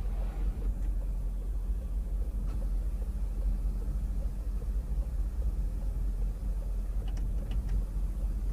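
A steady low rumble inside a car's cabin, with a few faint clicks near the end.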